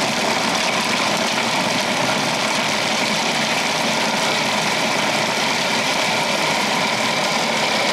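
Electric blender with a chopper bowl running steadily at low speed, chopping coarse chunks of onion and carrot. The motor cuts off abruptly at the end.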